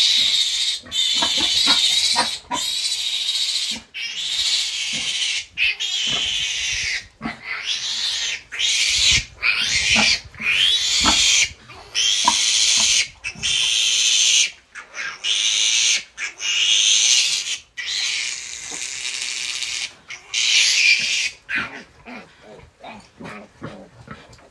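Newborn piglet squealing in distress over and over, shrill screams each about a second long with short breaks between them, while held for tail and teeth clipping. The squeals die down near the end.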